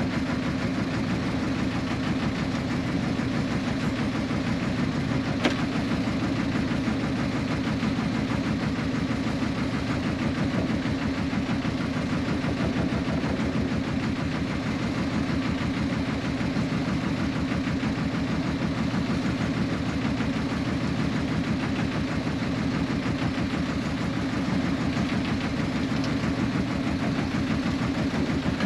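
Small fishing boat's engine running steadily at low revs, a dense even throb. One sharp click about five seconds in.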